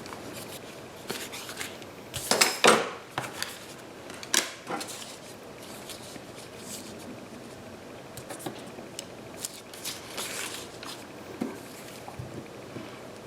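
Paper pieces being handled and glued at a craft desk: rustling, light taps and clicks as glue stick is rubbed onto the backs of paper cutouts and pressed down, with a louder clack about two and a half seconds in.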